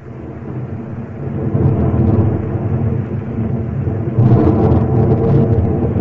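Thunder rumbling as a sound effect opening a black metal demo's intro track. It fades in, swells, and grows louder again about four seconds in, with the top end cut off by the cassette transfer.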